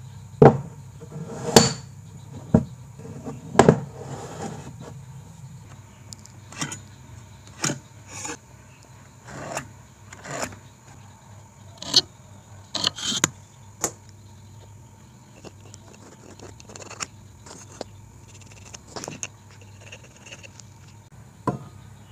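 Irregular knocks and clicks of a wooden block and a metal combination square being set down and shifted on a wooden workbench, a dozen or so separate taps over a faint steady hum.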